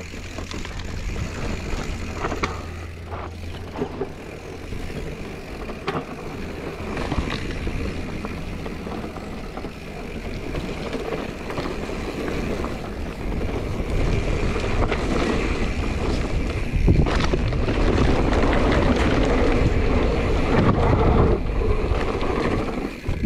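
A 2021 Giant Trance X 29 3 mountain bike riding down a dirt trail: tyres rolling over dirt, the bike rattling and clattering, and wind on the microphone. It grows louder from about two-thirds of the way through.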